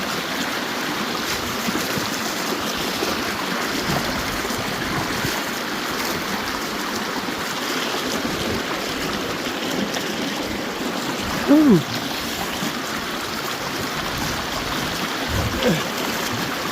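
Shallow river running over rocks at very low water: a steady rushing with no breaks. A short exclamation, "ouh", about twelve seconds in.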